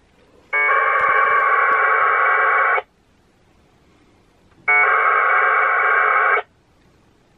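Two packet bursts of 1200-baud 2-metre packet radio data tones heard through the radio's speaker, each starting and stopping abruptly: the first about half a second in and lasting a bit over two seconds, the second after a two-second gap and lasting under two seconds. They are packets going over the air as a message is read from a remote packet mailbox.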